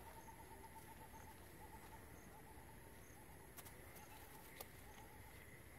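Near silence: faint outdoor background with a thin, steady high whine and two faint ticks about a second apart, a little past the middle.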